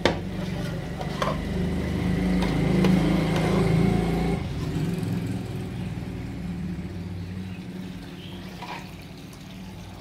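Steel ladle clinking against a large steel pot, with broth poured from it into clay bowls. Underneath is a low engine rumble that swells in the middle and then fades.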